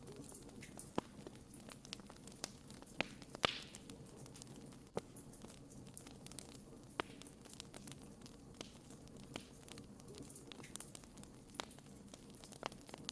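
Wood bonfire crackling, with irregular sharp pops from the burning firewood. One louder pop with a brief hiss comes about three and a half seconds in.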